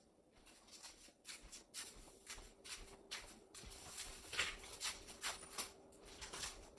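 Soft rustling and light handling noises: a string of irregular small clicks and shuffles, thicker in the middle, with a faint steady hum that comes in about two seconds in.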